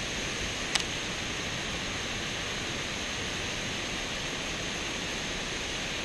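Water pouring steadily over a low dam's spillway, a constant rushing hiss, with one short sharp click about a second in.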